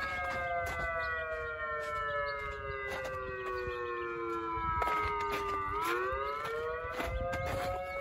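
S5 electronic outdoor warning siren sounding its wail tone. The pitch glides slowly down for about six seconds, then turns and climbs again. It is a single speaker running at half power in a 575 Hz mode that imitates a mechanical siren.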